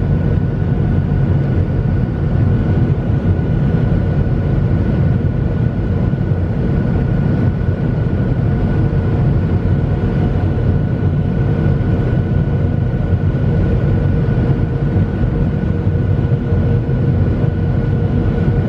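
Boeing 737 jet airliner heard from inside the cabin: a steady, unbroken low drone of engines and airflow, with a thin steady whine above it.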